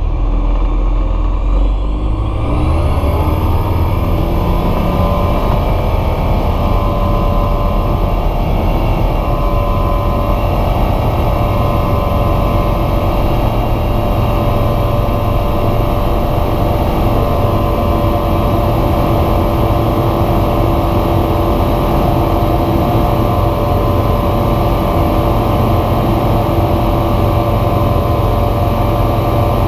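Bristell light aircraft's engine and propeller coming up to full takeoff power, the pitch rising over the first few seconds and then holding steady through the takeoff roll and lift-off.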